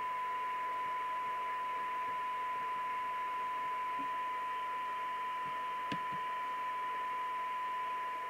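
Cobra UK75ST CB radio's speaker playing a steady test tone from a signal generator over receiver hiss, as it picks up a weak 0.6-microvolt test signal with the squelch open during receive alignment. A faint click about six seconds in.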